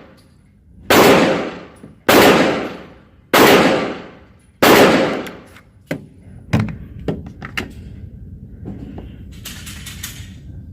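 Four shots from a Kel-Tec PMR-30 .22 Magnum pistol, about a second and a quarter apart, each with a long echoing tail, followed by a few lighter clicks and knocks.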